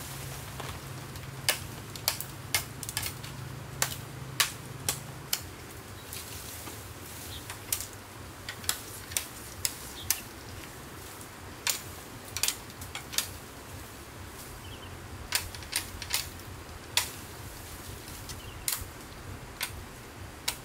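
A series of sharp, irregular clicks, about twenty in all with uneven gaps, over a low steady hum that stops about five seconds in.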